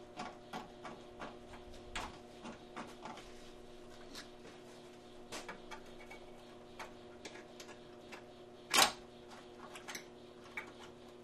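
Light, irregular clicks and ticks of small metal parts being handled as radiator mounting nuts are started by hand on their studs, with one sharper, louder click near the end. A faint steady hum runs underneath.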